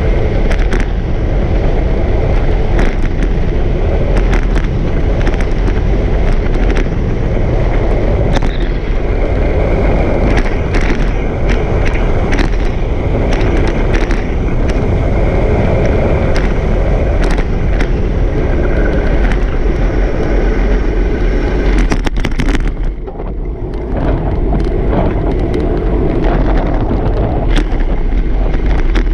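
Wheels rolling fast over rough asphalt with a steady rumble, wind buffeting the microphone, and frequent sharp clacks over cracks and bumps. The rumble drops briefly a little past two-thirds of the way through.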